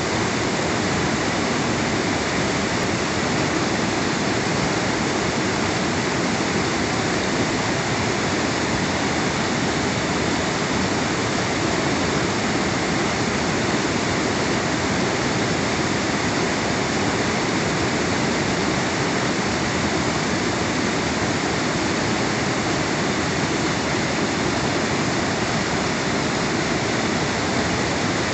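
Mountain stream cascading over boulders: a steady, even rush of white water.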